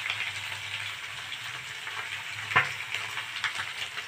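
Small fish shallow-frying in hot mustard oil in an iron kadhai under a cover of pumpkin leaves: a steady sizzle full of small crackles, with one sharp crack about two and a half seconds in.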